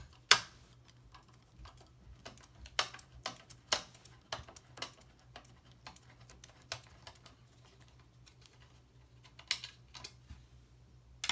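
Screwdriver turning a screw out of the sheet-steel rear panel of a mid-90s desktop PC case: irregular light clicks and ticks of the tool on the screw and panel, with a sharp click just after the start, over a faint low hum.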